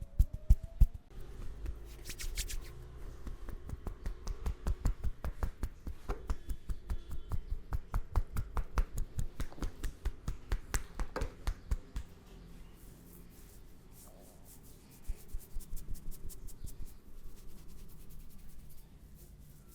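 Hands tapping and patting a head in quick rhythmic strikes, Indian head massage (champi) style, each strike with a dull thud beneath it. The strikes stop about twelve seconds in and resume softer a few seconds later.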